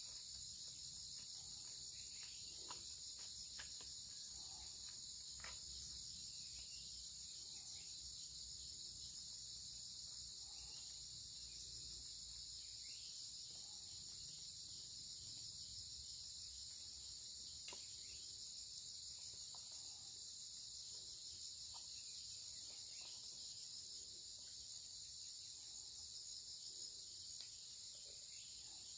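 A steady, unbroken high-pitched chorus of insects, with a few faint clicks.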